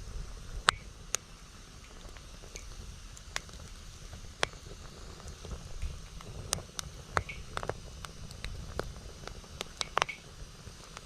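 Wood campfire crackling with sharp, irregular pops, over a low rumble of strong wind buffeting the microphone.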